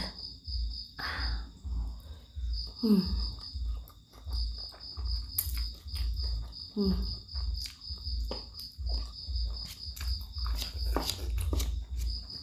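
Close-miked chewing and eating of laksa: soft low thuds about twice a second with small wet clicks, and a few short falling hums. Behind it runs a steady, pulsing high-pitched whine.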